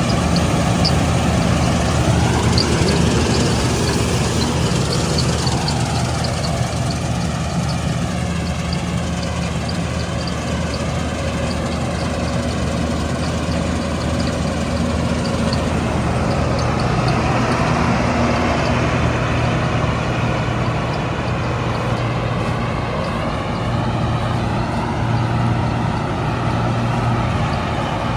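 Combine harvester's diesel engine running steadily, with a faint light ticking in the first several seconds; its engine note shifts a little past halfway through.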